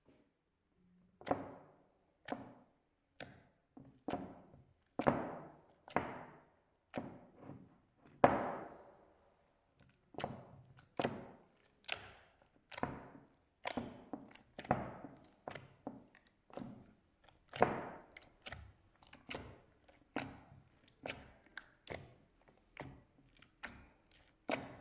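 Slime being worked in a series of sharp, repeated strokes, each with a short fading tail. The strokes start about a second in, come about once a second, and speed up in the second half.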